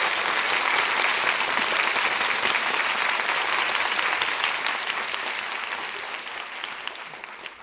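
Studio audience applauding, the clapping fading away over the last two seconds.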